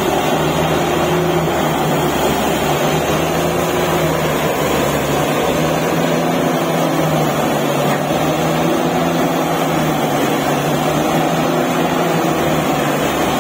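Truck-mounted borewell drilling rig running steadily under load, its diesel engine and air compressor giving an unbroken drone while the drill turns and air blows muddy water and rock cuttings out of the borehole.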